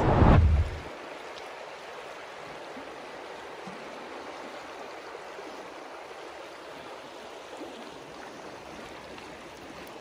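A brief low rumble at the very start, then a shallow river running steadily over stones.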